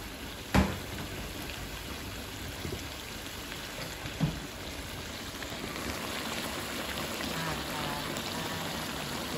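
Coconut-milk curry bubbling at a boil in a wok over a gas burner, a steady watery bubbling that grows a little fuller after about six seconds. There is a sharp knock about half a second in and a softer thump about four seconds in.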